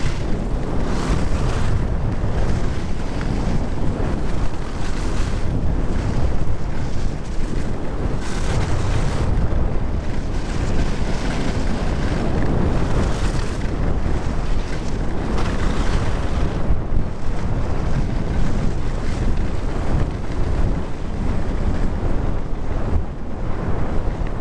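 Wind buffeting the microphone of a camera carried down a ski slope, a loud steady rumble, with the hiss of skis carving on snow swelling and fading every few seconds.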